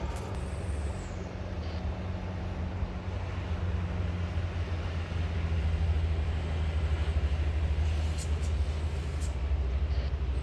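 Jet airliner engines heard from a distance, a steady low rumble with a faint hum that grows a little louder about halfway through.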